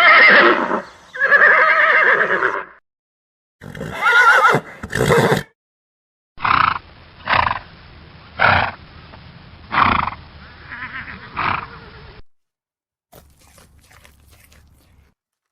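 Horse neighing: two long whinnies with a wavering pitch in the first five seconds. These are followed by five short, sharp horse calls about a second apart, and then faint clicking near the end.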